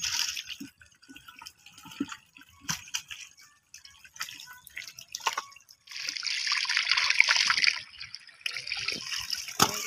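Shallow muddy water sloshing and splashing as a person wades and works in it, with scattered small splashes and a longer spell of splashing about six seconds in.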